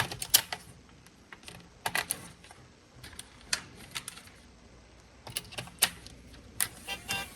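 Irregular sharp clicks and taps of hard plastic parts of a transparent toy racing car being handled and taken apart.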